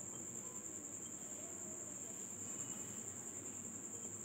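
A steady, unbroken high-pitched trill of the kind a cricket makes, over faint low background noise.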